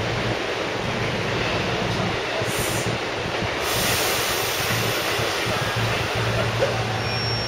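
A 285 series electric sleeper train standing at a station platform: a steady low hum under a continuous rumble, with two short hisses, the first about two and a half seconds in and a longer one near four seconds.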